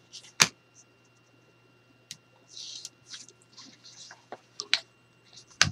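Paper and board being handled on a cutting mat: short rustles and scrapes as the paper covering is folded and pressed around an album-cover corner, with scattered small clicks. Two sharp taps stand out, one just under half a second in and a louder one near the end.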